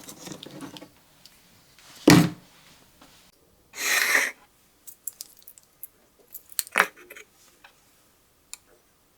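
Small metal tools being handled after the filing stops: a knock, a short scraping rub, then scattered light metallic clicks and taps.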